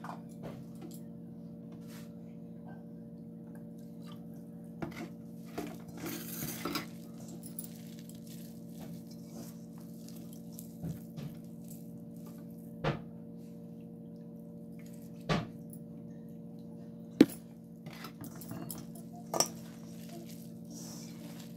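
A hand mixing fenugreek leaves, chopped onion and gram flour in a stainless steel bowl: soft rustling with scattered sharp knocks and clinks against the bowl, the loudest about seventeen seconds in, over a steady low hum.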